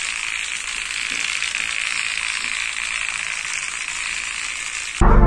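Small battery-powered DC motor of a homemade vibrating robot ant buzzing steadily at high speed, with a blade whirling on its shaft and the little robot's body rattling against the floor. Music starts abruptly near the end.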